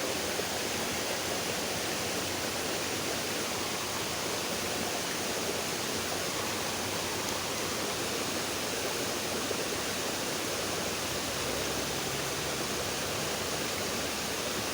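Water of a small, shallow river flowing steadily.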